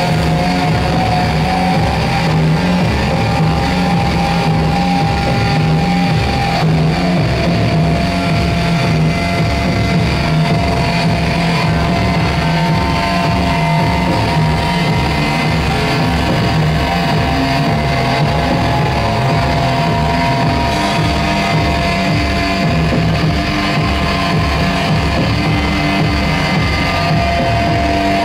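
Loud live noise music: a dense, distorted low pulse with sustained tones held over it that shift in pitch a few times.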